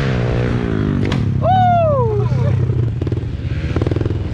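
Small dirt bike engine running and revving, its pitch rising and falling in the first second, then holding steady. About a second and a half in, a high tone falls in pitch over about half a second.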